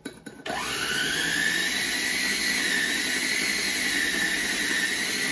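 Electric blender switched on about half a second in: its motor spins up with a quickly rising whine, then runs at a steady high whine while blending a kimchi paste of ginger, mango and aromatics. A few light kitchen clinks come just before it starts.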